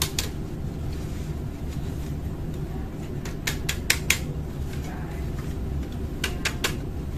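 Hard plastic clicks and taps of a 49A/53A laser toner cartridge's parts being handled: a quick group of four or five a little over three seconds in and three more near the end, over a steady low hum.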